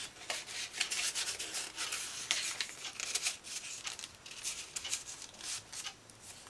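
Paper and cardstock rubbing and rustling as a tag is slid in and out of a pocket in a handmade scrapbook mini album: an irregular run of short, scratchy strokes.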